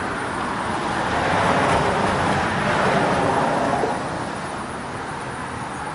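A road vehicle driving past: a steady road noise that swells over the first few seconds and then fades.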